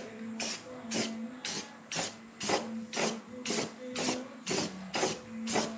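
Aerosol can of spray primer being sprayed in short, quick bursts, about two a second, as the nozzle is pressed and released again and again.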